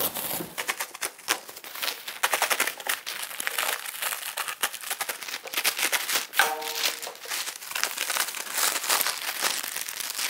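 Plastic wrapping being cut open and pulled off a delivered pallet, with continuous irregular crinkling and crackling.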